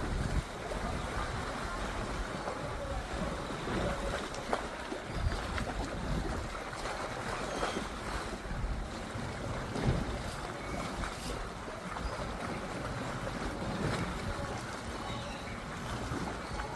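Steady rush of water and wind noise aboard a boat under way.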